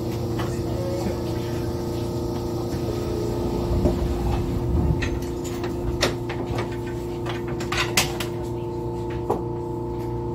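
Steady electrical hum of a stopped 817-series electric train's equipment, with a few fixed tones over a low rumble. A few sharp knocks come through, about six and eight seconds in and again near the end.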